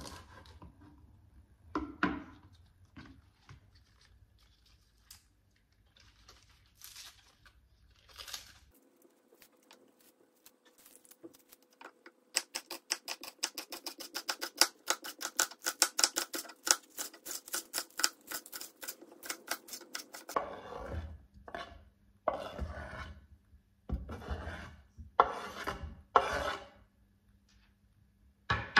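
Kitchen knife chopping spring onion on a wooden cutting board: a few scattered cuts, then a fast, even run of chopping, about five strokes a second. Near the end come louder, irregular knocks.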